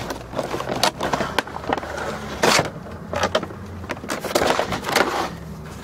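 Cardboard toy box and its packaging being handled and opened by hand: a run of small clicks, knocks and rustles, with a louder scrape about halfway through.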